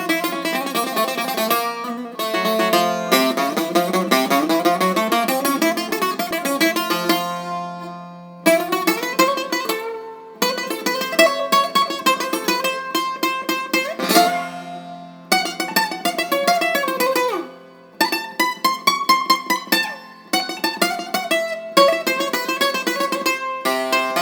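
Bouzouki playing a taximi improvisation: quick plucked single-note runs and sliding phrases over a steady low drone note, broken by several brief pauses between phrases.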